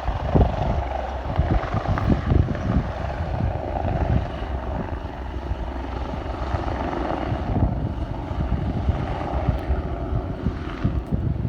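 Wind buffeting the microphone in irregular low gusts over a steady background rush.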